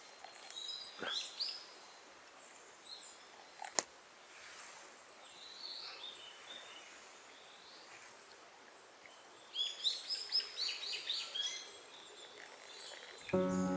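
Wild birds chirping and calling in a forest, with a quicker run of chirps about ten seconds in and a single sharp click about four seconds in.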